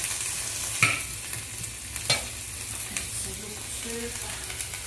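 Pickled dayeqin greens and potato pieces sizzling as they are stir-fried in a large iron wok. A metal spatula scrapes and knocks against the wok twice, about one and two seconds in.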